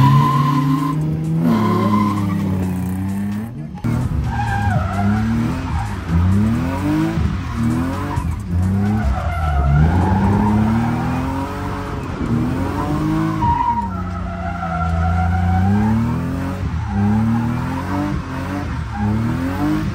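Drift car engine revving hard, its pitch climbing and dropping again every second or two as the throttle is worked through slides, with tires skidding and squealing over it.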